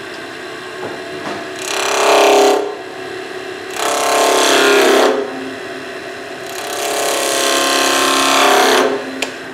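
Wood lathe running with a steady hum while a skew chisel cuts into the spinning wood in three loud passes, about two, four and seven seconds in, each lasting one to two and a half seconds. These are the cuts that shape the pommels at the ends of a baluster blank.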